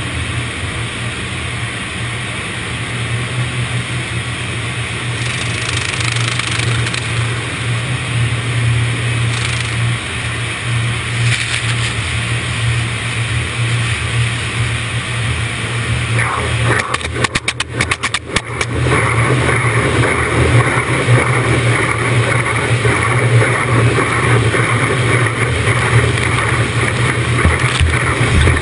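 Car wash running: a steady rush of noise over a low hum. A quick run of clicks comes about two-thirds of the way through, after which the rush grows louder and brighter.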